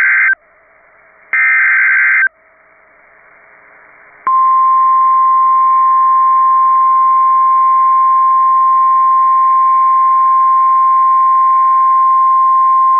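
Emergency Alert System SAME digital header: the end of one harsh data burst, then a full one about a second long. After a two-second gap comes a single steady tone, the 1050 Hz warning alarm tone of NOAA Weather Radio, held for about nine seconds.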